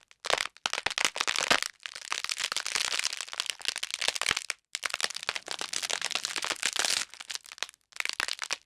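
Star Wars Force Choke sound effect: a dense crackling, crinkling noise of many rapid clicks, in several bursts of one to three seconds separated by short breaks.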